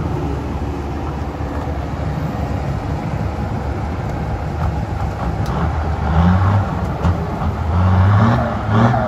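Diesel engines of a Kobelco SK200 excavator and a mired dump truck working under load as the excavator pushes the truck through deep mud. The engine drone grows louder from about six seconds in.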